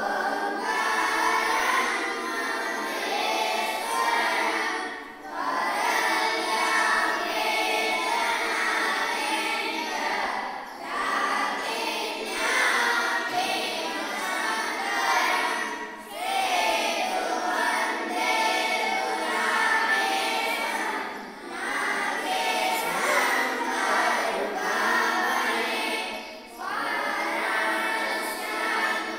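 A group of boys singing a Hindu aarti hymn together in unison, in phrases that break for a breath every five seconds or so.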